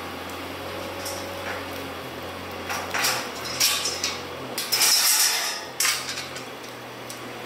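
Steel tube gate clanking and rattling as it is handled and swung open, in several clattering bursts from about three seconds in, over a steady low hum.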